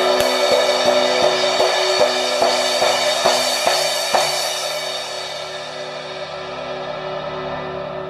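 Istanbul pre-split green-logo 15-inch crash cymbal tapped repeatedly with a drumstick, about two to three strokes a second, over its building wash. The strokes stop about four seconds in and the cymbal rings on, slowly fading.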